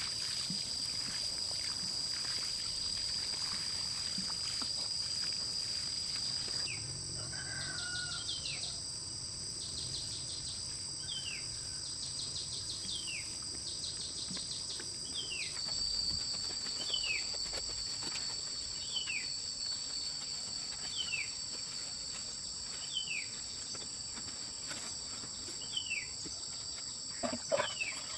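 Chorus of insects: a steady, high-pitched trilling. From about a quarter of the way in, a short falling call repeats about once a second.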